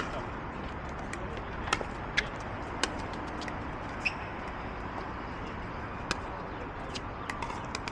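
Pickleball paddles hitting a plastic pickleball in a rally: a handful of sharp pops at irregular gaps of half a second to two seconds, over a steady background hum.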